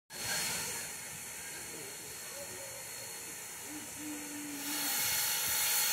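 Steam locomotive, ex Norfolk and Western 475, hissing as it vents steam, the hiss growing louder about five seconds in.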